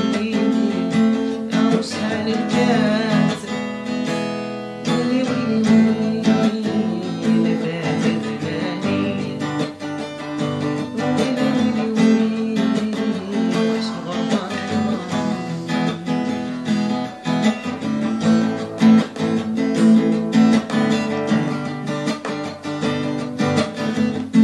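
Acoustic guitar strummed and plucked, playing the accompaniment of a song.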